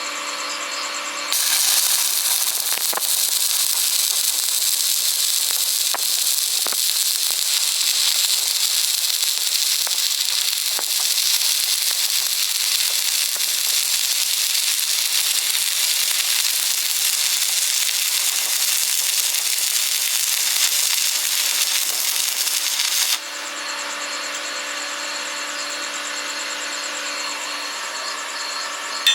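Stick welding arc burning steadily with a dense, crackling sizzle and occasional pops, starting about a second in and stopping abruptly near the end.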